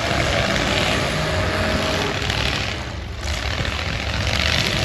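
Eight-cylinder demolition derby cars' engines running loud all together, with a brief lull about three seconds in.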